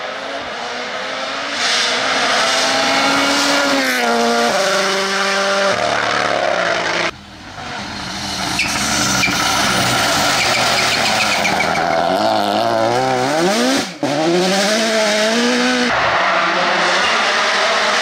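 Toyota GR Yaris rally car's turbocharged four-cylinder engine revving hard at full speed, its pitch climbing and dropping with gear changes and lifts, with tyre noise on tarmac. The sound drops off sharply twice, about 7 and 14 seconds in.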